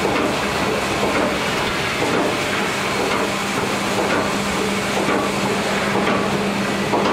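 Log unscrambler and chain log conveyor running: a steady mechanical clatter with a constant hum, as the chain arms carry a large log up onto the conveyor.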